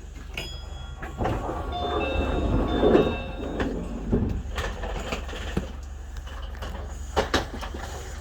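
Tokyo Monorail 1000-series train running, with a steady low rumble. Brief whining tones rise out of it between about one and four seconds in. A few sharp clicks come near the end.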